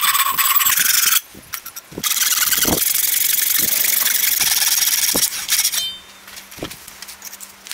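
Hand saw cutting through the end of an ash axe handle where it sticks out above the head, in quick rasping strokes. It breaks off briefly about a second in and stops about six seconds in as the cut is finished, leaving a few light knocks.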